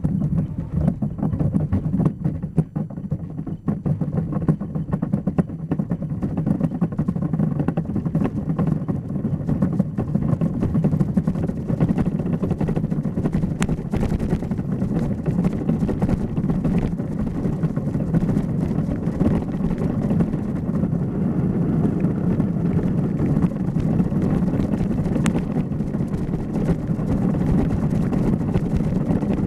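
Bobsleigh running down an ice track, heard from on board: a steady low rumble of the steel runners on the ice, with many small knocks and rattles from the sled, a little louder from about ten seconds in.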